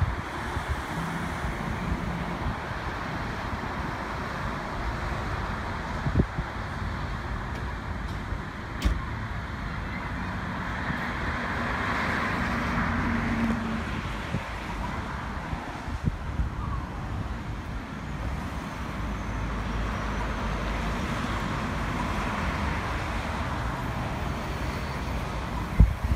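Road traffic at a signal-controlled intersection: a steady wash of passing cars, swelling to its loudest about halfway through as a vehicle goes by, then easing and rising a little again.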